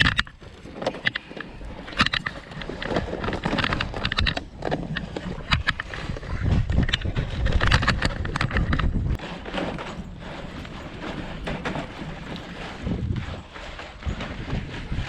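Dog sled running over snow: runners crunching and scraping, with many irregular clicks and knocks from the sled and the dogs' feet, swelling and easing as it goes.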